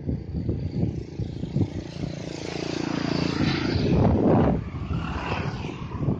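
Engines rumbling with a steady low hum that builds to a loud swell about four seconds in.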